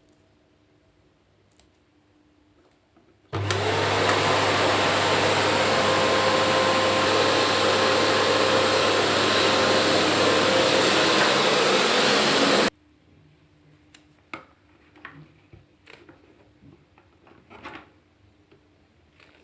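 Philips 2000 Series bagless vacuum cleaner (XB2122/09) switched on, running steadily at full power for about nine seconds, then switched off abruptly. A few small clicks and knocks follow, like the machine being handled.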